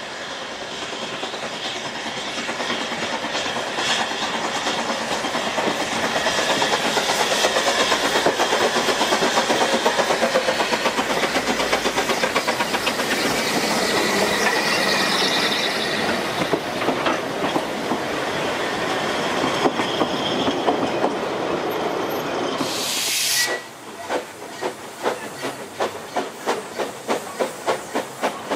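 A narrow-gauge steam train headed by the Ffestiniog Railway locomotive Prince runs slowly past close by. Wheels rattle and click over the rail joints and the locomotives work as the noise builds to a steady loud racket. Near the end comes a brief loud hiss of steam, then the sound drops to a steady rhythmic beating of about two a second.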